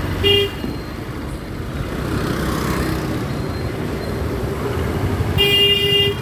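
A vehicle horn honks twice, a short toot then a longer one near the end, over the steady hum of slow street traffic and engines.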